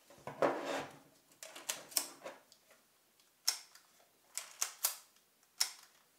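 A Leica M7 film camera being handled: a brief rustle as it is lifted out of a pile of straps, then a run of sharp, separate mechanical clicks from the camera, roughly one every second.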